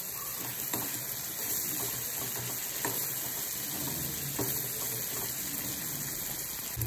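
Masala-coated mussels sizzling in hot oil in a kadai, stirred with a metal ladle that clicks against the pan now and then. The sizzle is a steady hiss: the mussels are partway through frying and not yet browned.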